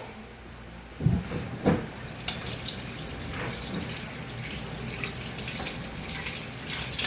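Two dull knocks about a second in, then a kitchen tap running steadily into the sink with small clinks, as a spoon is washed.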